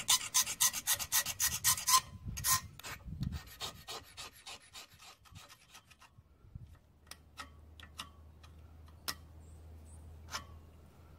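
Hand tool scraping rust off the crankshaft of an International Type M engine next to the flywheel hub, metal on rusty metal. It goes in quick strokes, about six a second, for the first two seconds, then slows to scattered scrapes and small ticks.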